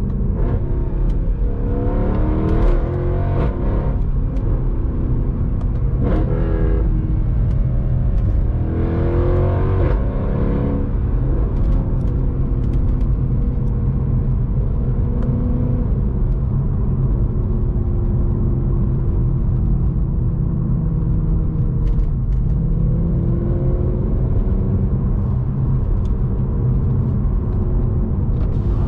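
Mercedes C63 AMG's 6.2-litre naturally aspirated V8 under way, heard from the driver's seat. Its note rises in pitch three times in the first ten seconds or so, dropping back sharply at each gear change, then holds steadier while cruising and climbs again with throttle about two thirds of the way through.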